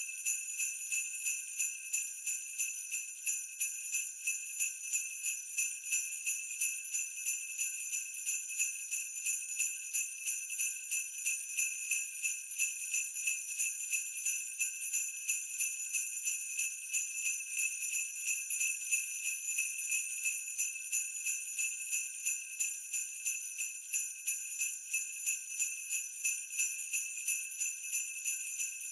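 Sleigh bells shaken in a steady, even rhythm, giving a continuous high-pitched jingling.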